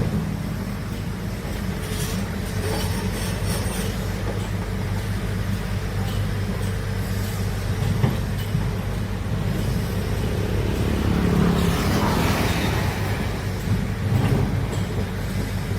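Heavy diesel engine of a large excavator running steadily, with a swell of louder machine noise for a couple of seconds about twelve seconds in.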